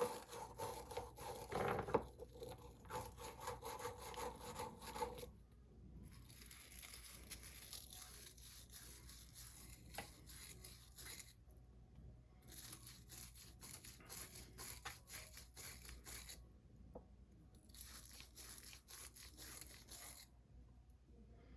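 A small brush scrubbing corrosion out of a fishing reel's drag assembly: dry, scratchy rubbing in bouts of a few seconds with short pauses between. A steady hum runs under the first few seconds.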